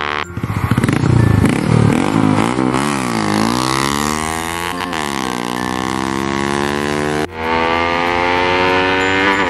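Honda Wave 110i motorcycle with an aftermarket exhaust accelerating past. Its single-cylinder four-stroke engine revs up, and the pitch climbs and drops several times through the gear changes before falling away. Near the end the sound cuts suddenly to a steady drone.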